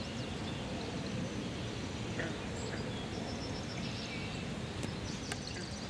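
Steady outdoor marsh ambience: an even background hiss with faint, scattered bird chirps and a couple of sharp clicks near the end.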